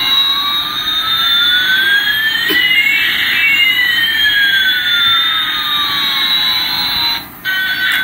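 Electronic sound effect of a battery-powered toy Airbus A380 plane: two synthetic tones glide smoothly in opposite directions, one rising and one falling. They cross about three seconds in and cut off about a second before the end. There is a single click about two and a half seconds in.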